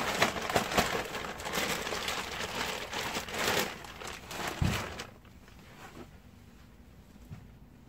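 Plastic bag crinkling and rustling close up as manure mixed with soil is shaken out of it into a planting hole, with a dull thump a little before five seconds in; the handling stops about five seconds in.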